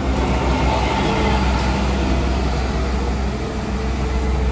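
Steady low rumble of vehicle engines and road traffic.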